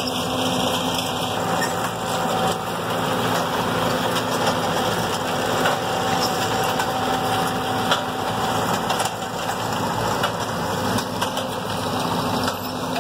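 Tractor engine running steadily together with the machinery of a Brouwer RoboMax sod harvester at work, with a few sharp clicks from the harvester.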